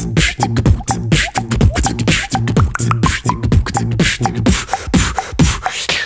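Beatboxing a house beat: a downward-gliding kick about twice a second, sharp hissing hi-hat and snare sounds between the kicks, and a held low bass hum underneath.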